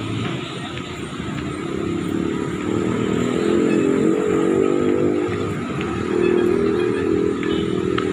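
Street traffic: a motor vehicle's engine running past, growing louder from about two seconds in and easing off near the end.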